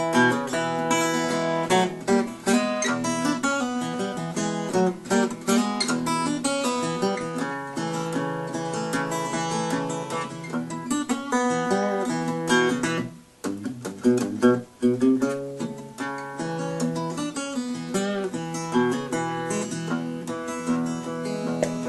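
Solo steel-string acoustic guitar fingerpicked in a blues instrumental break, the guitar tuned to E. The playing thins out briefly a little past halfway, then picks up again.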